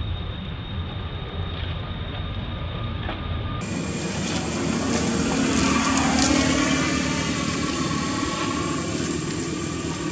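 Engine noise of a passing vehicle: a steady low rumble that swells to a peak about six seconds in and then fades.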